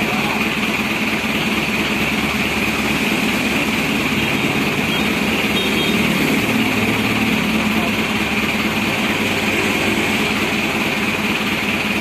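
Steady machine running noise: a constant low hum with a hiss over it, unchanging in level.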